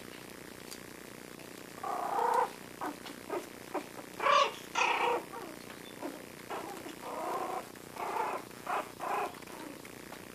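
Four-week-old Yorkshire terrier puppies play-growling in a string of short bursts, loudest about four seconds in.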